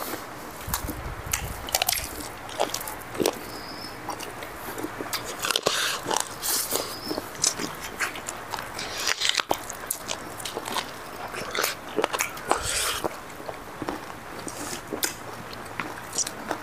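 Close-up sounds of people eating cooked chicken with their hands: biting and chewing, with irregular sharp clicks and smacks.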